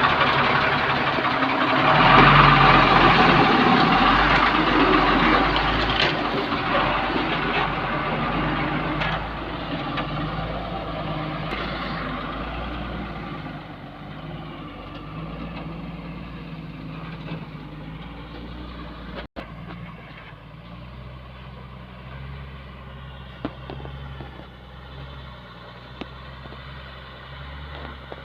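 Heavy diesel engine of a construction vehicle running. It is loud at first and fades steadily over the first half or so, then runs on more faintly.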